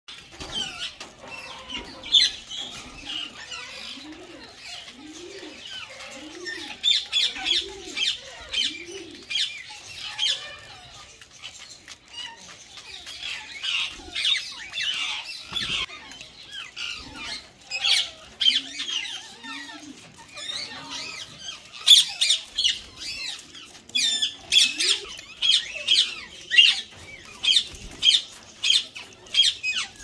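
Indian ringneck parakeets squawking and screeching in quick runs of sharp, high calls. A low, arching note repeats about once a second for a stretch near the start and again briefly later.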